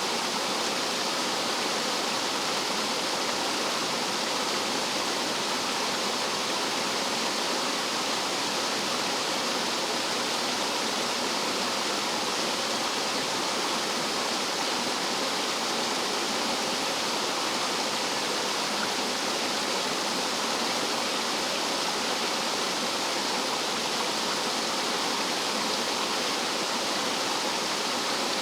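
Rough mountain stream water cascading over rocks like a small waterfall: a steady, unbroken rushing.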